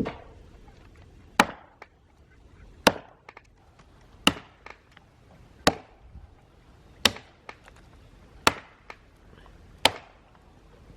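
Axe chopping into a black walnut limb by hand: eight sharp, even strokes about a second and a half apart, with a few fainter knocks between some of them.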